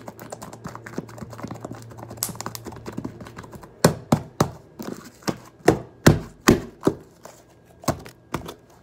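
Pink slime squeezed and poked in the hands close to the microphone: quiet crackling at first, then about a dozen sharp pops and clicks from about four seconds in.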